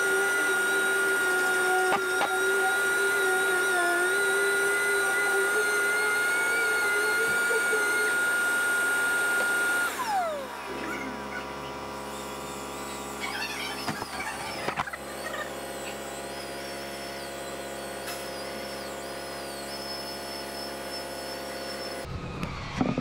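Random orbital sander with its dust extraction running steadily against a car door panel, then switched off about ten seconds in, its pitch falling as it spins down. A quieter steady machine hum carries on after it, with a few light clicks.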